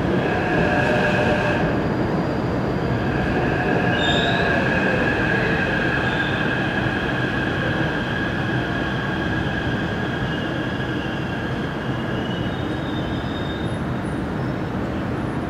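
Taipei Metro C371 electric train running past and out into the tunnel: a steady rumble of wheels on rail with several high, held wheel-squeal tones over it. The rumble eases a little toward the end.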